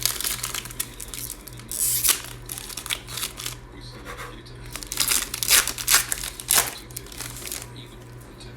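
A plastic trading-card pack wrapper crinkling and tearing open, in short bursts, with the loudest ones about five to seven seconds in.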